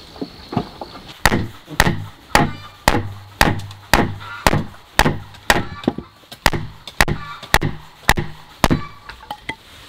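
Repeated chopping blows at a steady pace of about two a second, each a sharp strike followed by a short dull ring. A few lighter taps lead in and trail off at either end.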